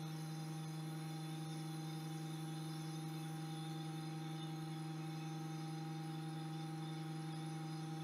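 A steady electrical hum: one low tone with fainter, higher tones above it, unchanging throughout.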